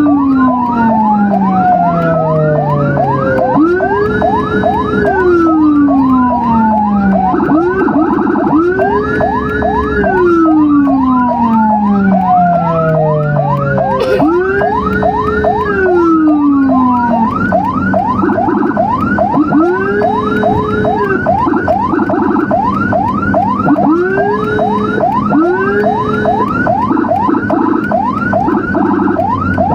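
Emergency vehicle sirens sounding together: a slow wail that rises, holds, then falls away over about three seconds, layered over a fast yelp sweeping several times a second. A little past halfway the wail switches to shorter, quicker cycles, and there is one sharp click about halfway through.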